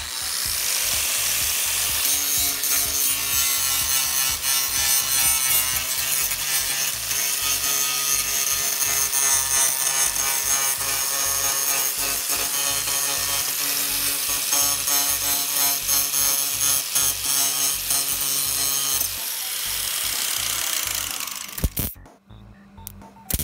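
Angle grinder grinding the sheet metal of a car body panel, a loud steady grind with a high whine. Near the end the whine falls as the grinder winds down, followed by a few sharp crackles as MIG welding of a steel patch begins.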